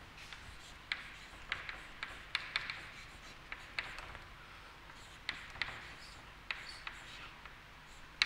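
Chalk writing on a chalkboard: short scratchy strokes with sharp taps as the chalk strikes the board, coming irregularly about every half second as letters are formed.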